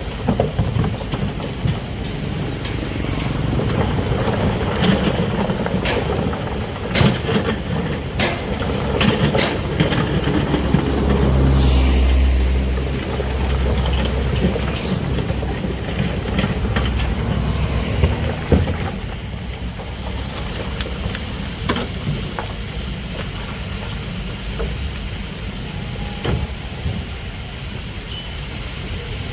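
Heavy earthmoving machinery working: a low diesel engine rumble with scattered sharp metal knocks and clanks, swelling loudest about halfway through and easing off later.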